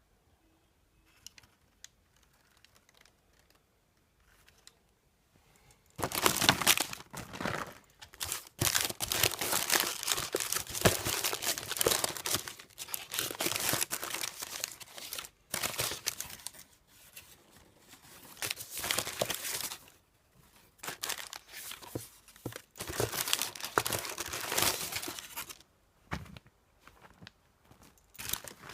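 Parcel packaging being torn open and crumpled by hand, in irregular loud stretches with short pauses, starting after a few seconds of near quiet with faint clicks.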